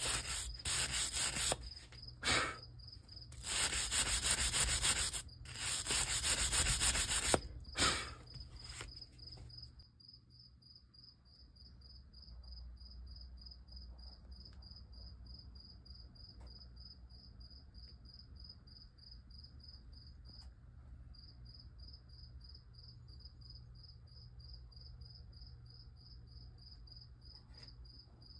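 A series of loud rubbing and scraping strokes as a wooden vise jaw pad is worked against the cast-iron vise jaw, ending about nine seconds in. A cricket chirps throughout in a steady, fast pulsing trill and is left alone once the rubbing stops.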